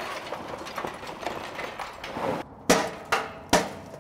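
Lump charcoal rattling and tumbling out of a paper bag into a metal chimney starter, then three sharp metal clanks about half a second apart near the end, from the steel firebox of an offset smoker.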